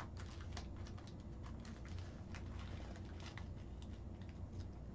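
Small metal bolts and nuts clicking lightly and irregularly as they are picked out and handled by hand, over a low steady hum.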